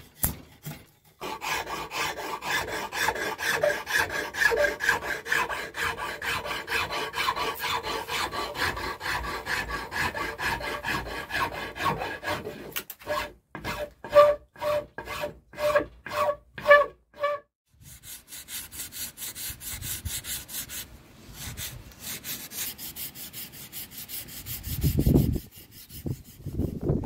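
Hand file or rasp worked in quick back-and-forth strokes along an acacia-wood pickaxe handle, then several slower separate strokes that each ring briefly. From about two-thirds of the way in, sandpaper rubbing on the wood, with a single low thump near the end.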